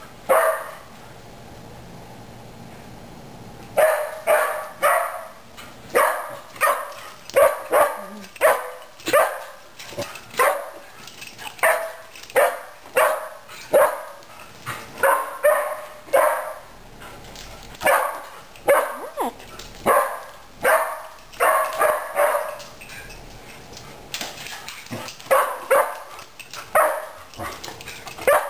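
Dog barking excitedly in a long run of short, sharp barks, about one to two a second, after a few seconds' pause: excited barking at the owner coming home.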